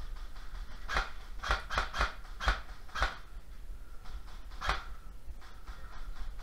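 A run of sharp clicks or snaps, seven in all and irregularly spaced: six close together in the first half and one more a little later, over a low steady rumble.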